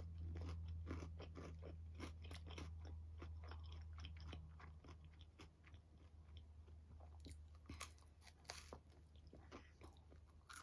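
A person chewing leftover pizza close to the microphone: many small crunches and mouth clicks, thicker in the first half and thinning out later, over a low steady hum.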